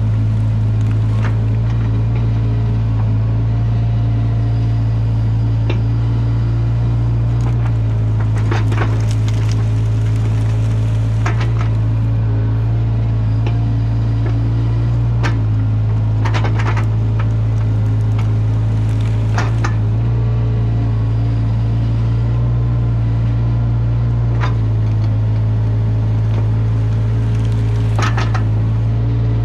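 Caterpillar 305 mini excavator's diesel engine running steadily, heard from the operator's seat, its hum shifting slightly a few times as the hydraulics work the arm. Intermittent knocks and crackles come as the rake drags and crushes brush and sticks across the ground.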